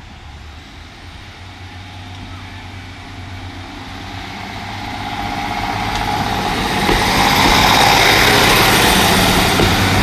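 Class 150 diesel multiple unit pulling out of the station and passing close by. Its diesel engine and wheels grow steadily louder over the first seven seconds, then stay loud with a low engine hum as the carriages go past.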